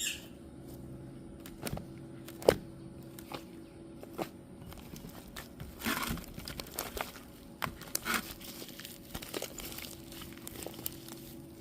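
Fluffy slime being squeezed and stretched by hand, giving soft, irregular pops and clicks.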